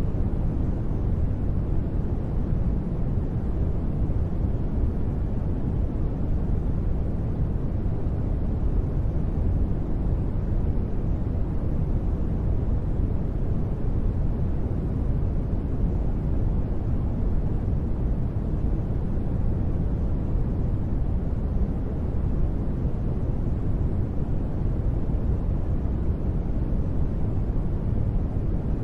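Continuous sleep noise, sold as white noise but deep in tone: a steady, even hiss weighted heavily toward the low end with little treble, unchanging throughout.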